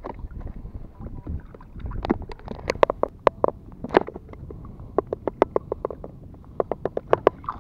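Sharp clicks and taps in quick, irregular runs as a multi-hook fishing rig with several small fish on it is hauled up out of the sea. Under them runs a low rumble of water and wind.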